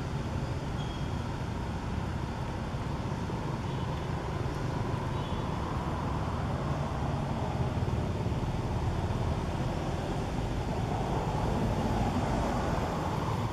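Steady low outdoor rumble, an even noise with no distinct events.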